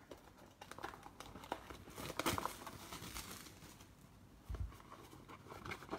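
Packaging of a trading card blaster box being torn open and handled: faint crinkling and tearing with small crackles, and a dull thump about four and a half seconds in.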